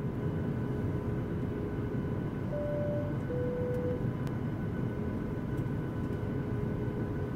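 Boeing 737-800 cabin ambience: the steady rumble and hiss of the air system with a faint electrical hum. About two and a half seconds in, a two-note high-low chime sounds.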